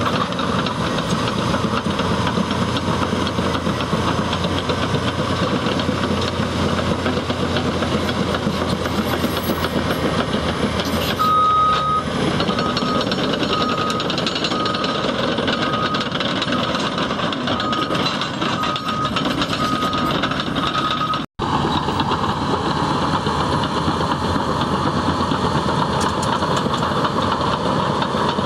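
Caterpillar D6T bulldozer's diesel engine running under load with its steel tracks clattering. For about ten seconds in the middle, a reversing alarm beeps repeatedly as the machine backs up.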